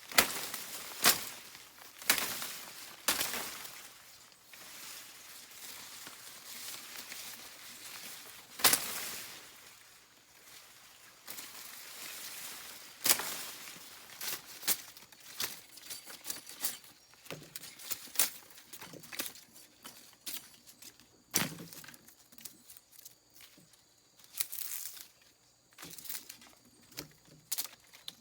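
Irregular rustling and crackling, broken by sharp snaps every second or two.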